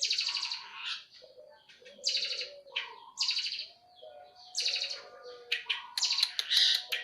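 Eurasian tree sparrows chirping in repeated harsh bursts, the chatter of sparrows fighting, turning into a quick run of sharp chirps near the end.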